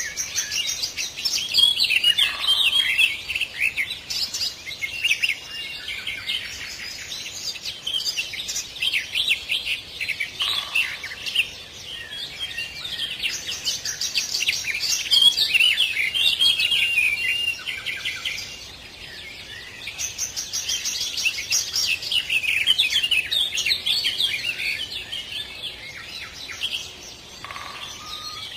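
Songbirds singing: long runs of quick, high chirps and trills, broken by a few short lulls.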